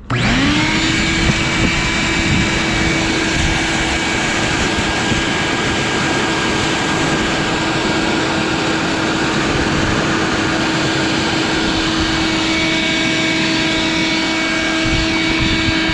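Vacuum cleaner with a small nozzle switched on, its motor spinning up in the first moment and then running steadily with a steady whine and loud rushing air as it sucks up debris.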